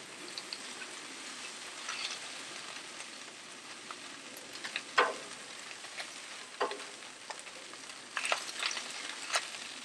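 Fried rice sizzling in butter and oil on a Blackstone flat-top griddle, a steady hiss, with the metal spatula scraping and clicking on the cooktop now and then and a quick run of scrapes near the end.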